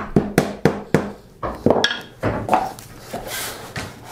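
Several quick wooden knocks in the first second or so: a mallet tapping the planing stop down into the workbench. Scattered softer knocks and a short hiss follow as the hand plane goes back onto the thin board.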